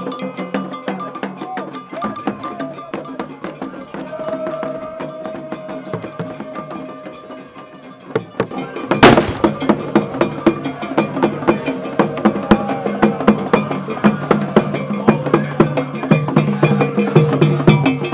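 Traditional Ghanaian drum ensemble: large drums carried on bearers' heads and beaten with sticks, playing a dense, fast rhythm. The drumming is quieter at first; a sharp bang about nine seconds in is followed by louder, steady strokes.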